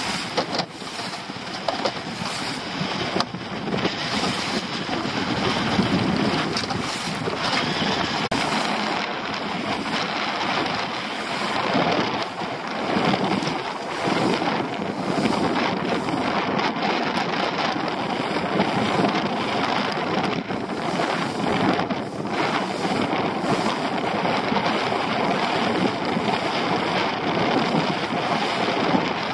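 Wind buffeting the microphone over choppy sea water splashing against the hull of a small open boat under way; a steady noise throughout.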